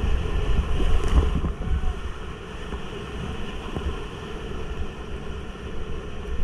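Whitewater rapids rushing and splashing around a kayak, with low rumbling buffeting on the microphone. Louder for the first second and a half, then steady.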